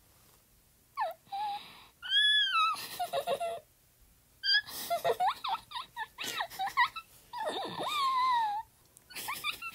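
A high-pitched, wordless eerie voice effect. After about a second of quiet it gives a string of short gliding, wavering cries and quick chattering runs, broken by brief pauses.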